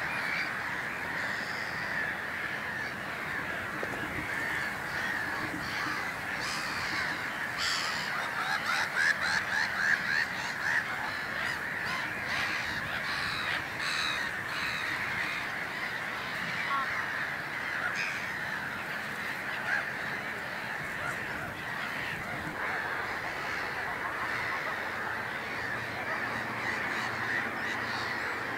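Wetland bird chorus: many waterbirds calling at once, harsh cawing and honking calls over a continuous din, loudest about eight to eleven seconds in.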